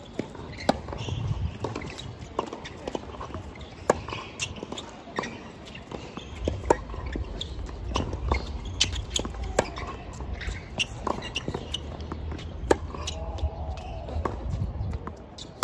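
Tennis balls being struck by rackets and bouncing on the court: a string of sharp pops and knocks at uneven intervals over a low rumble.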